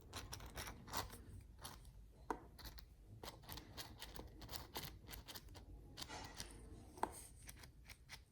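Faint, irregular clicks and taps of small metal and plastic parts being handled as the axle shaft is fitted back into an RC crawler's portal axle housing, with a sharper click about two seconds in and another near the end.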